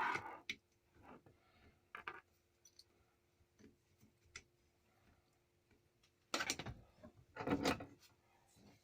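Hose fitting being screwed by hand into a vintage Dunlop footpump: scattered light clicks and rubbing of small metal parts, with two louder scraping rubs near the end.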